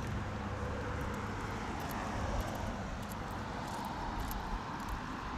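A steady distant rumble with a hiss over it, and faint irregular ticks.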